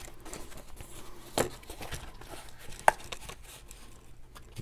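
Cardstock box card being handled and pressed flat on a craft mat: soft paper rustling with a few knocks, the sharpest about three seconds in.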